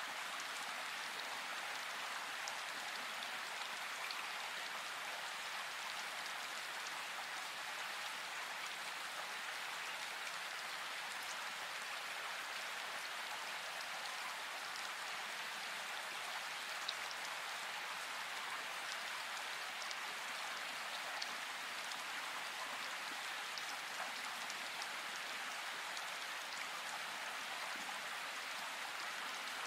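Steady rain: an even hiss with a few faint drop ticks.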